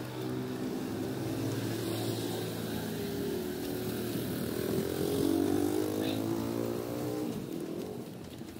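Small motorcycle engine of a mototaxi (a motorcycle-drawn passenger cart) running past close by. It gets louder to a peak about five seconds in, then fades.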